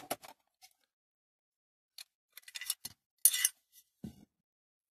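Light metallic clicks and clinks from small metal parts being handled: a few short, separate taps, the loudest a bit over three seconds in.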